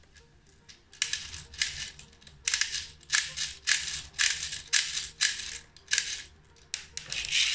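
Tube-style airsoft BB speed loader being pumped into a gas blowback pistol magazine: a run of short plastic clicks and rattles, about two a second, as the BBs are pushed in, starting about a second in.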